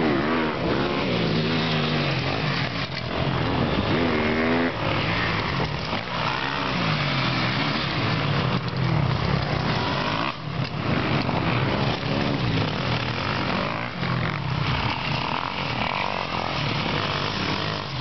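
MX1-class motocross bikes, 250 cc two-strokes and 450 cc four-strokes, racing past one after another, their engines revving up in repeated rising sweeps and dropping between gear changes.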